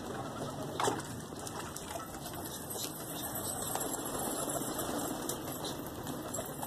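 Domestic pigeons' wings flapping as the flock comes down to land, a soft rustling whir, with one sharp click about a second in.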